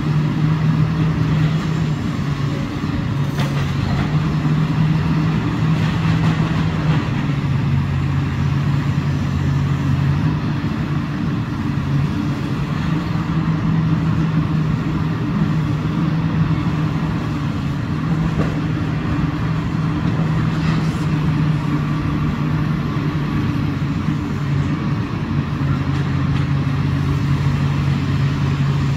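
Komatsu PC360LC excavator's diesel engine running steadily, its note dipping and rising slightly in pitch now and then, with a few faint knocks.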